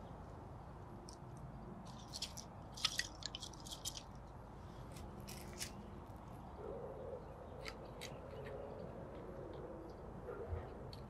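Light wooden clicks and scrapes as thin slivers of wood are handled and wedged into the gaps between stacked logs. The sharpest cluster of clicks comes a few seconds in.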